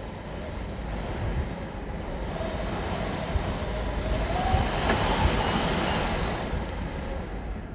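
Strong typhoon wind gusting, swelling to a peak about five seconds in and then easing, with a thin whistle over the rushing noise.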